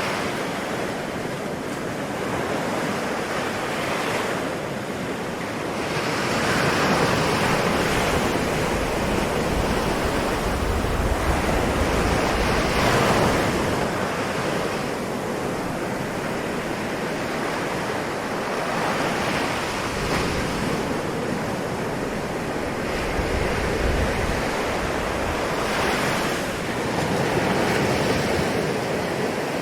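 Ocean waves breaking and washing ashore, the surf swelling and easing every few seconds.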